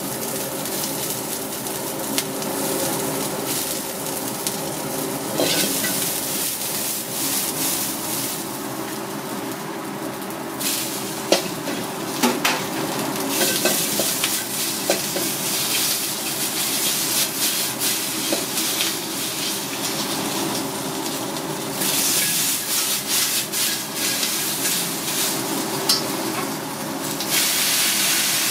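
Sliced conch meat and green onions sizzling in hot oil in a wok, stir-fried with wooden chopsticks. The sizzle swells louder at times, and the chopsticks knock and scrape against the wok now and then.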